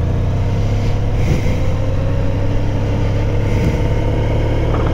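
Motorcycle engine running at low road speed under a steady low rumble, its pitch rising slowly and evenly.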